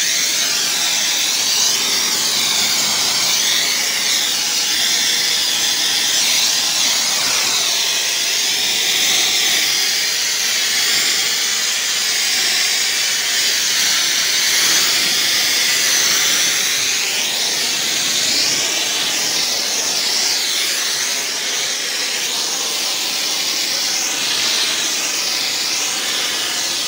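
Pressure washer's high-pressure water spray blasting dirt off a concrete driveway: a loud, steady hiss that wavers up and down as the spray sweeps across the surface.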